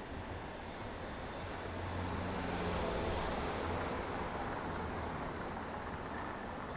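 City street traffic noise, swelling as a motor vehicle passes about two to three seconds in.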